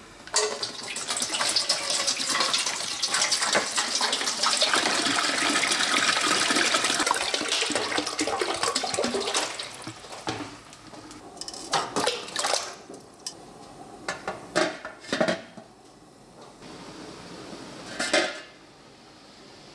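Water poured from a plastic bottle into a large aluminium pot, splashing steadily for about ten seconds. A few short splashes and knocks follow, and near the end the metal lid is set on the pot with one sharp knock.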